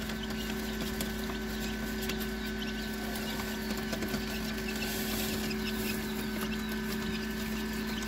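Day-old quail chicks cheeping, many small calls over a steady electrical hum.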